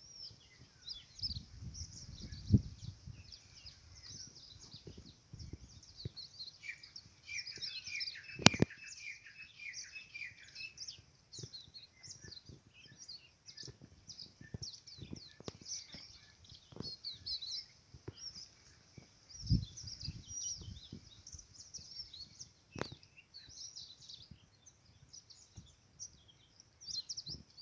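Many small birds chirping and twittering at once, short high calls overlapping throughout, with a lower cluster of calls about seven to ten seconds in. Scattered low thumps and a sharp click about eight and a half seconds in stand out above the birdsong.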